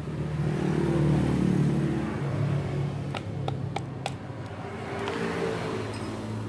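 A motor vehicle engine running past, swelling louder and fading twice. Midway come a handful of sharp metal taps as a rod knocks a stuck piston out of a rotary hammer's gear housing.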